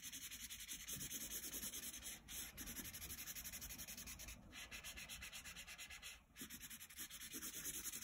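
Crayola felt-tip marker scribbling on paper in quick back-and-forth strokes, a faint rhythmic scratch that pauses briefly about two, four and six seconds in.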